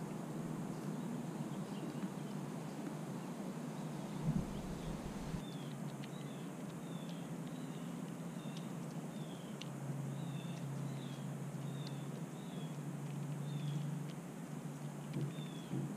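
A short, high chirp repeated about every half second to second from about six seconds in, each note sliding slightly down, from a small bird or animal. Under it runs a steady low hum, with a brief thump about four seconds in.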